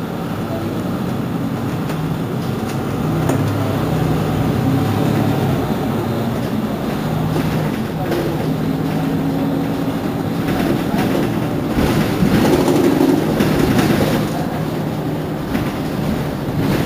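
Mercedes-Benz Citaro C2 city bus standing with its engine idling, a steady low hum, with street noise and voices around it; it gets a little louder about two thirds of the way through.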